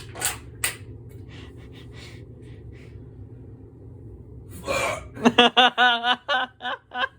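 A man straining to force a burp after drinking Sprite: two sharp clicks, then about two-thirds of the way in a sharp breath and a drawn-out, wavering croak from the throat, broken off into short choppy vocal pulses. It is a forced, throaty imitation that does not come out as a real burp.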